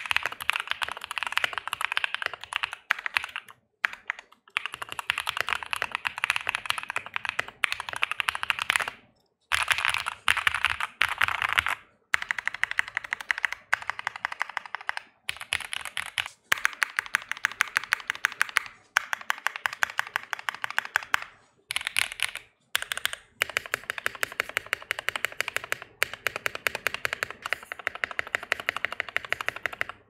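Fast typing on a custom Portico mechanical keyboard fitted with lubed and filmed Tecsee Oreo linear switches, AKKO Silent Cherry keycaps and PE foam and tape mods: dense runs of keystroke clacks, broken by a few short pauses.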